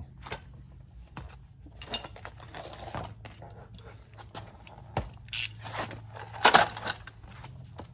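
Metal hand tools clinking and clattering as they are handled during work on the rear brake and axle, with a run of small clicks and two louder clanks in the second half.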